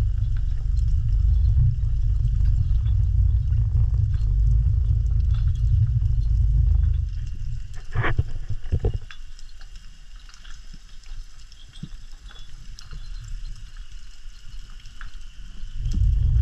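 Underwater sound picked up by a diver's camera: a low rumble of water moving against the camera, which drops away about seven seconds in and comes back near the end. Faint crackling clicks run throughout, with a couple of sharper clicks a little past the middle.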